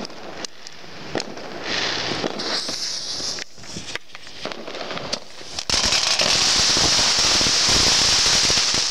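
Fireworks going off at close range: a run of sharp pops and crackles from firecrackers, then, a bit past halfway, a loud steady hiss from a firework spraying sparks.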